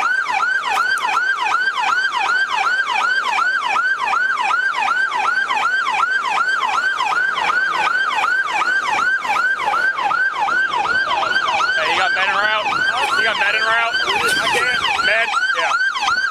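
Police car siren in fast yelp mode, rising and falling about three times a second without pause. A second siren overlaps briefly about twelve seconds in.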